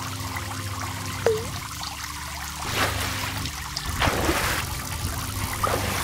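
Water sound effects, trickling and pouring, over a low steady hum, with a short falling blip about a second in and a few short rushes of noise in the second half.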